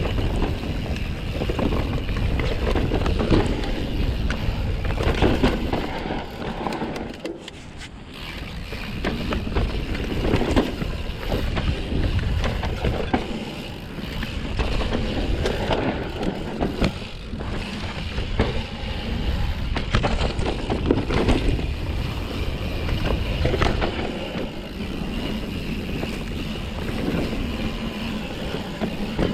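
Mountain bike descending dirt singletrack: tyres rolling and skidding over dirt and roots with the bike rattling, in uneven swells that ease off briefly about seven seconds in.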